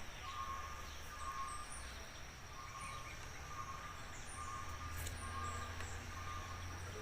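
Faint outdoor ambience: small birds chirping high and faint, and a short call repeating about once a second, over a steady low hum.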